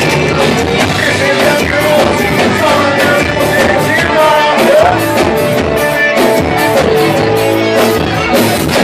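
Band playing a country song, with a steady drum beat, guitar and a singing voice.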